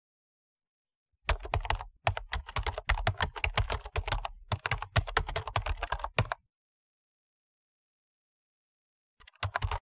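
Typing on a computer keyboard: a quick run of key clicks for about five seconds, with a couple of brief pauses, then a short burst of a few more keystrokes near the end.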